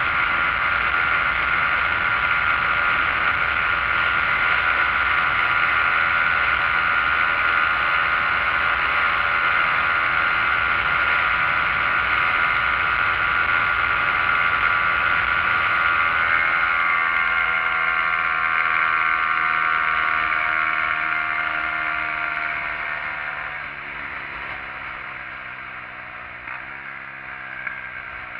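SYM XS125-K motorcycle's 125 cc single-cylinder engine running at cruising speed under a heavy rush of riding wind. About two-thirds of the way in, the throttle closes and the bike slows: the rush fades and the engine note falls steadily, jumping back up once near the end.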